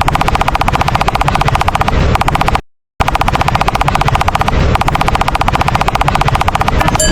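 A loud, very fast rattle of many sharp strikes a second, like automatic gunfire, with a complete dropout of about half a second near the three-second mark before it resumes.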